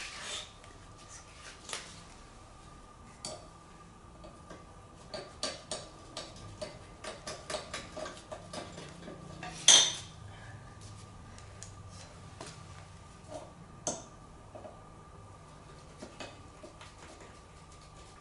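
Metal hand tools clinking and clattering against the rear wheel and stand of a scooter during a rear tyre change, in short irregular knocks. One loud, ringing metal clink comes just before halfway.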